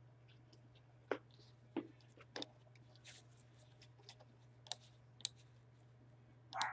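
Faint computer mouse clicks: about six short single clicks spread unevenly, over a steady low hum.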